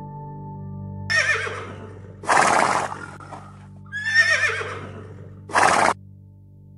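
Horse whinnying twice, each wavering call followed by a short noisy burst, over a faint steady music drone.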